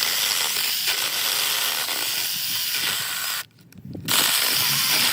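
A 20-volt cordless mini chainsaw running and cutting through wood, with a steady hiss of the chain. It stops for a moment about three and a half seconds in, then starts again.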